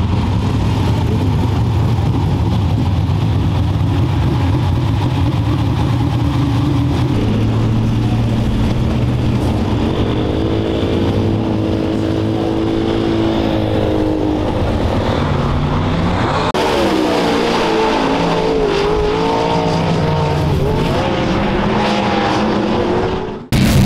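360 sprint car V8 engine running loud and steady, its pitch rising and falling as it is revved and worked, mostly in the second half.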